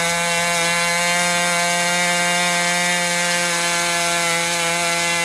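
HP 61 two-stroke nitro glow engine running steadily at a constant pitch while its high-speed needle valve is being adjusted to tune the mixture.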